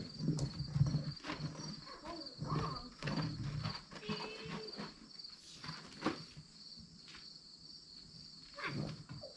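Crickets chirping in a steady, regular high-pitched pulse, with scattered knocks and rustles from work on a farm wagon. A low rumble stops about four seconds in.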